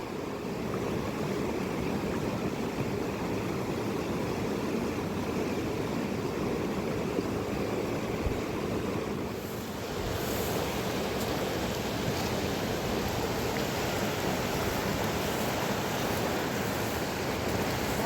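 Steady rushing of a mountain river, an even noise with no distinct events; the sound dips briefly and shifts slightly brighter about ten seconds in.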